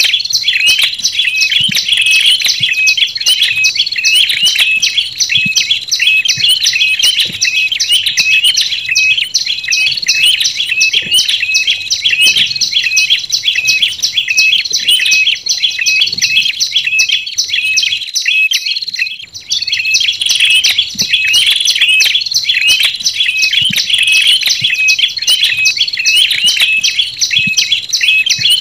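Tailorbirds calling: a quick, even run of repeated high-pitched chirps from a looped bird-luring call recording, with a short gap about 18 seconds in.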